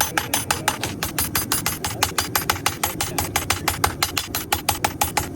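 Power hammer striking hot steel in rapid, evenly spaced blows, about six or seven a second, over a low steady rumble.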